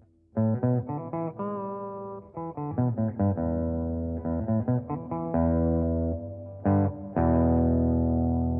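Electric guitar played through a Tube Screamer-style overdrive pedal and a Line 6 Spider 30 amp: a quick phrase of picked notes and short chords, then a chord struck about seven seconds in and left to ring out.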